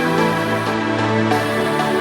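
Background music: sustained electronic chords and tones changing every second or so.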